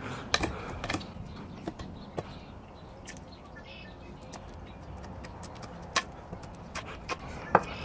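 Mora Companion Heavy Duty MG knife whittling a piece of wood: short, sharp clicks and ticks of the blade biting and chips breaking off, coming irregularly a few times a second.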